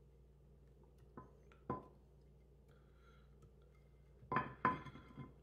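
Ceramic dishware clinking as halved meatballs are scraped off a plate with a spatula into a baking dish: two light clinks a little after a second in, then two louder, briefly ringing clinks near the end.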